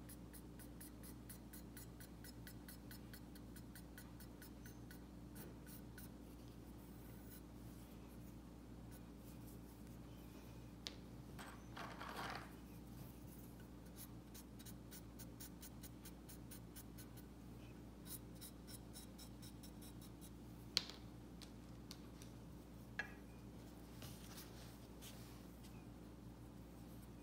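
Faint scratching and rubbing of a cotton-tipped stick working oil paint on a glazed porcelain tile, with a few small sharp clicks, over a steady low hum.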